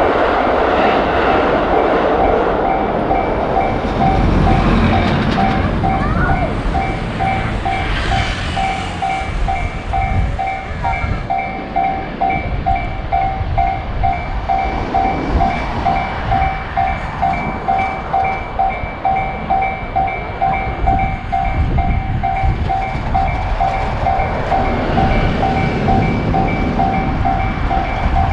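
Japanese railroad crossing's electronic warning bell ringing over and over, about two dings a second. Under it a train passes with a steady rumble that turns into a rhythmic clatter about halfway through.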